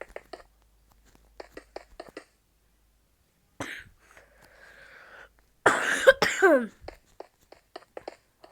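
A person coughing loudly. A short cough comes a little before the middle, then a harsh, much louder cough about two-thirds of the way through, with a voiced tail that falls in pitch. Faint quick clicks come before and after.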